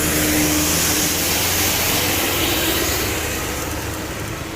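A passing bus's heavy engine running, with road noise, the sound slowly fading as it moves away.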